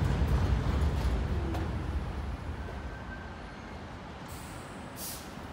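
R46 subway train braking to a stop at an elevated platform: the low rumble of the wheels fades over the first couple of seconds. A short hiss of released air comes near the end as the train halts.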